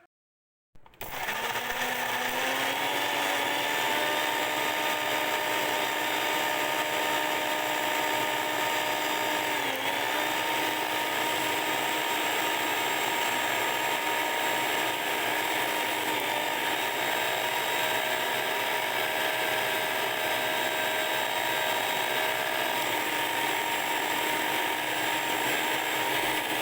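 Electric mixer grinder running, grinding pieces of roasted ginger with black salt and cumin powder. The motor whine climbs in pitch as it spins up over the first couple of seconds, dips briefly about ten seconds in, then holds steady until it cuts off.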